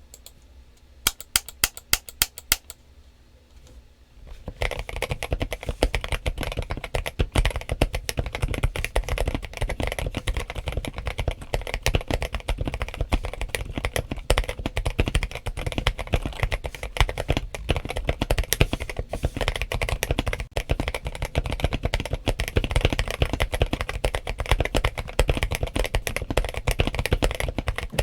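Typing on a modded KBM1800 (James Donkey RS2) mechanical keyboard with Kailh Box Cream switches and Idobao MA keycaps, its case filled and taped and its stabilizers tuned. A quick run of about a dozen keystrokes comes a second in, then a short pause, then steady fast typing.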